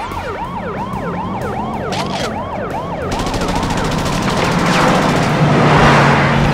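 Police car sirens wailing in quick, repeating up-and-down sweeps, two sirens at different pitches. A couple of sharp cracks come about two seconds in, then rapid gunshots, and the din grows louder near the end.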